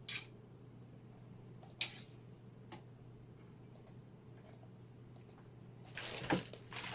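Sharp clicks and ticks from microphone mounting hardware (shock mount and boom arm) being handled, a few scattered over the first three seconds, then louder handling and rustling near the end.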